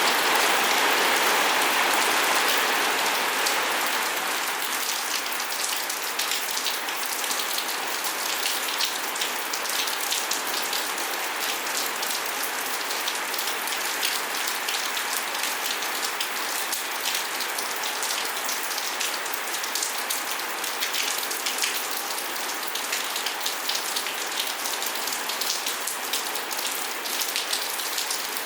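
Steady rain falling, with many separate drop hits heard through it. It is a little heavier for the first few seconds, then settles.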